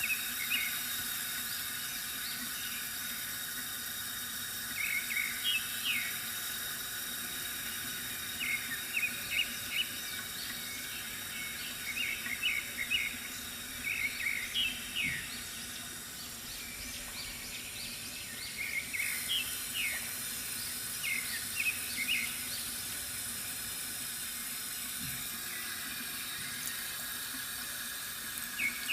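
Water trickling steadily from a bamboo fountain, with birds chirping in short rapid clusters every few seconds.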